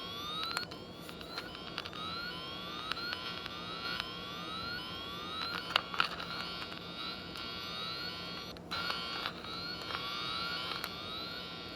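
Repeating electronic tone from a wire-tracing probe, each sweep rising in pitch, about two a second, as the probe is worked along the wiring harness looking for the right wire. A few sharp clicks of the probe being handled.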